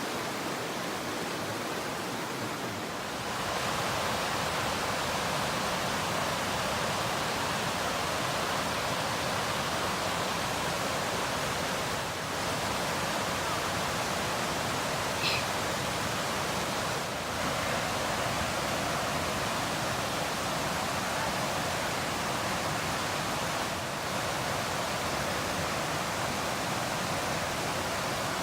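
Steady rushing of a mountain stream, a little louder after a few seconds, with one short high chirp midway.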